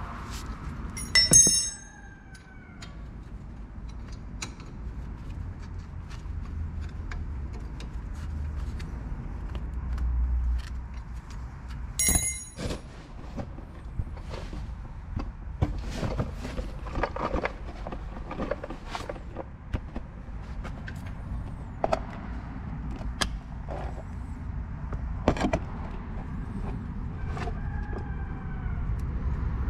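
Metal brake parts and hand tools clinking and knocking while a car's front brake caliper and pads are worked on, over a low steady hum. Two sharp metallic clanks that ring briefly stand out, one about a second in and one about twelve seconds in.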